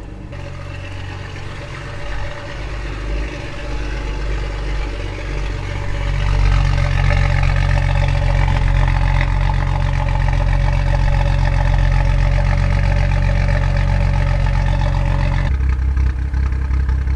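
BMW N55 turbocharged inline-six idling warm, its exhaust running through a VRSF catted downpipe. The note grows louder about six seconds in and settles to a lower pitch near the end.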